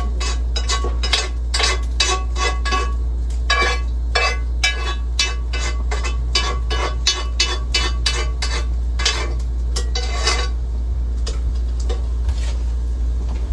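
A metal utensil stirring pasta and sauce together in a pot, clinking and scraping against the pot's sides about two or three times a second, over a steady low hum.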